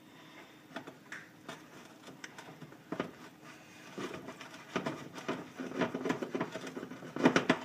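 Spoon stirring thick brownie batter in a mixing bowl, knocking and scraping against the bowl in irregular clicks that get busier about halfway through and are loudest just before the end.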